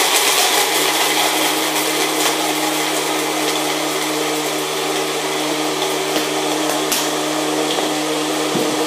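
Single-serve personal blender running steadily, blending a shake of ice, milk and protein powder: a continuous motor hum.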